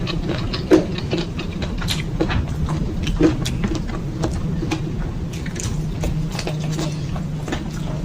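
Close-miked chewing and mouth sounds of someone eating chicken balado with petai: irregular wet clicks and small crunches over a steady low hum.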